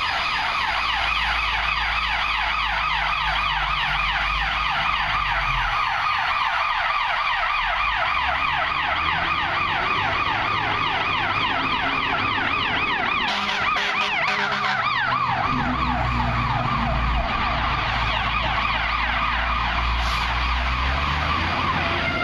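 Fire truck siren on a fast, steady yelp, with the truck's engine rumbling low underneath.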